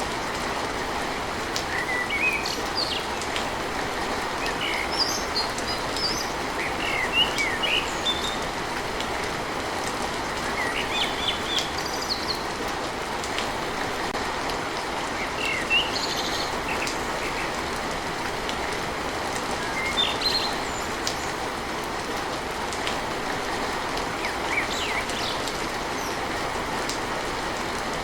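Steady rain on a tin roof, with birds chirping in short, scattered calls on and off over it.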